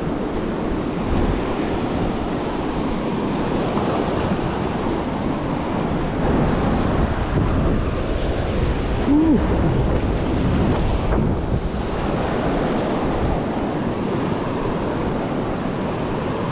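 Ocean surf washing in with wind buffeting the microphone: a steady rushing noise.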